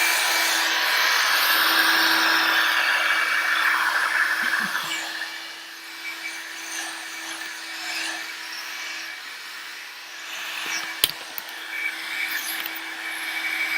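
One-step hair dryer and styler (hot-air brush) running on its low setting: a steady motor hum with rushing air, loud for the first four or five seconds and then softer. Two sharp clicks come near the end.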